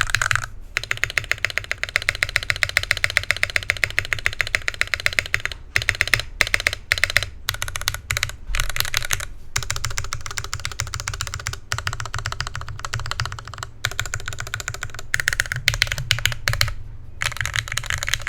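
Typing on an NK65 Aluminum mechanical keyboard with Gateron Black Box Ink switches, aluminum plate and PBT keycaps. A fast, even run of keystrokes for the first few seconds, then irregular typing in bursts with short pauses.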